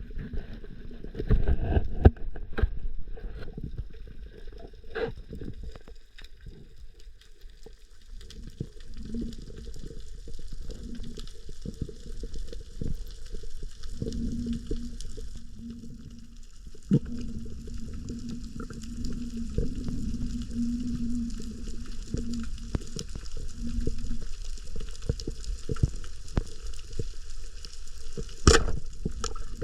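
Muffled underwater sound picked up by a camera in a waterproof housing: a dull rumble with scattered clicks and an on-and-off low hum, and one sharp knock near the end.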